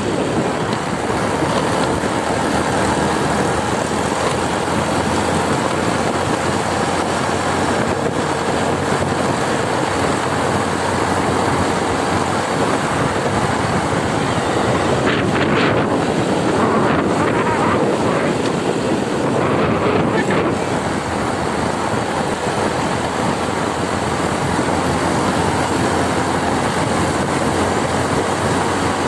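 A motorcycle being ridden at a steady speed: its engine runs under heavy, steady wind noise on the microphone.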